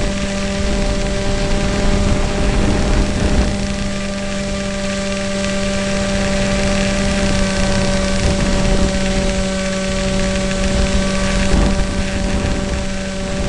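Electric motor and propeller of an EasyStar RC model plane running at steady throttle in flight, a constant buzzing whine with slight wavers in pitch, over heavy wind rush.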